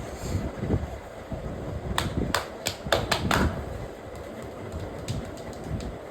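Hands working on a head during an oil head massage: a quick run of about six sharp clicks and slaps about two seconds in, followed by a few fainter ticks, over a steady low rumble.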